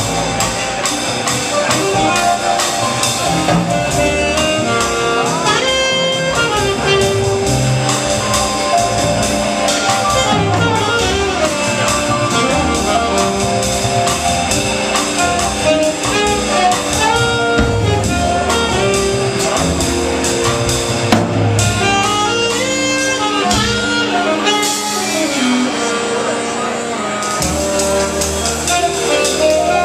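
Live jazz combo playing: a saxophone carries the melody over piano, bass and drums.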